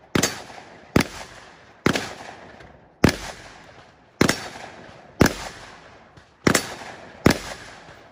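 Eight single gunshots fired at an unhurried pace, about one a second, each trailing off in echo.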